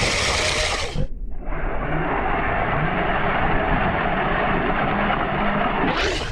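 Kyosho Blizzard RC snowcat running on its Hobbywing 2435 brushless motors: a steady rushing noise of motors and tracks, with a faint whine that wavers in pitch. The sound breaks off about a second in and resumes.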